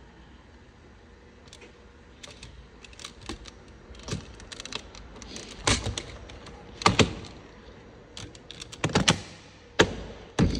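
Irregular plastic clicks and knocks from a car door handle and its trim being worked by hand, faint at first, with several sharper knocks in the second half.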